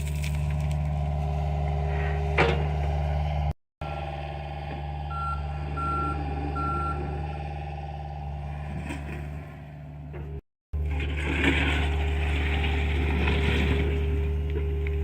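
John Deere excavator's diesel engine running steadily under load. There is a sharp knock about two and a half seconds in and a few short beeps in the middle. Crunching and scraping of digging come near the end, and the sound drops out twice for an instant.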